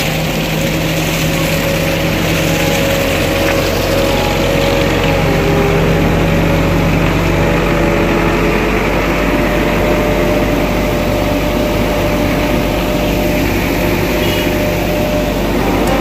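Diesel engine of an Ajax Argo 4000 self-loading concrete mixer running steadily while it turns its drum and discharges concrete down the chute.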